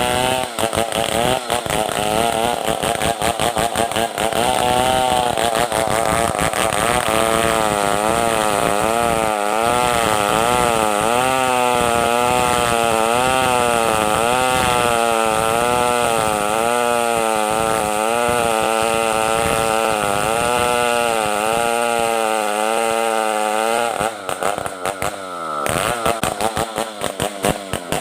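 Stihl 070 two-stroke chainsaw running under load, cutting merbau hardwood, its pitch wavering up and down as the chain bites. Near the end the engine eases off and runs choppy and uneven.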